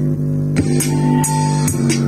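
Music with a steady beat playing through an amplified speaker system during its test after repair; it is working again with its audio amplifier IC and variable resistor replaced.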